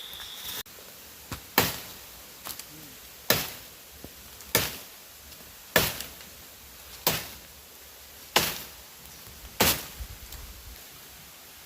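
Seven hard, evenly spaced chopping blows, about one every 1.3 seconds, with lighter knocks between some of them. A steady high insect buzz is heard briefly and cuts off abruptly just after the start.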